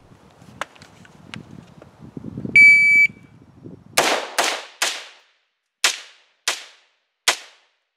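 A shot timer's start beep, one steady high tone lasting about half a second, then an AR-15 rifle firing six shots: three in quick succession about a second and a half after the beep, then three more spaced further apart.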